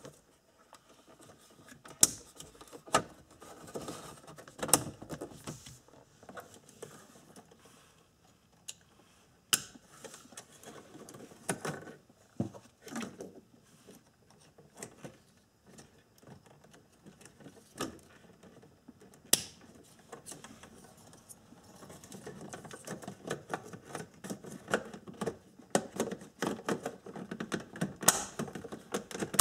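Plastic clicks, knocks and rattles of hands handling a car's dashboard instrument-cluster bezel: harness connectors being plugged into it and the bezel being pressed and snapped into place. The sharp clicks come one at a time every second or few, with soft rustling between them.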